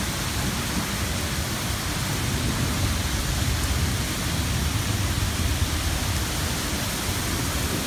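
Heavy wind-driven rain in a severe thunderstorm, a steady rushing downpour with no let-up.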